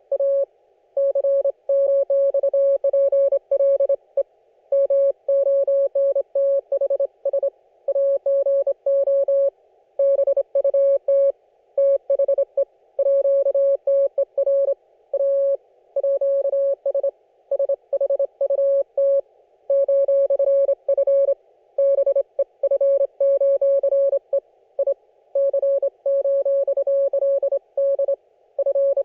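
Amateur-radio Morse code (CW) signal from an Icom IC-718 HF receiver: one steady mid-pitched beep keyed on and off in dots and dashes, with short pauses between characters and words, over a faint hiss of band noise.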